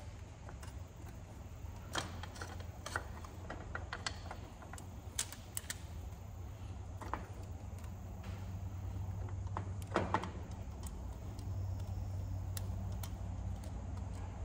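Scattered light clicks and taps of a replacement touchscreen panel and its metal frame being handled and its tabs fitted and locked in, the sharpest click about ten seconds in. A steady low hum runs underneath.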